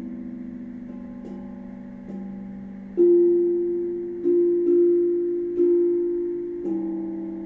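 Steel tongue drum struck with a mallet, playing a slow melody: single notes with sharp starts, each ringing on and fading under the next, the loudest about three seconds in.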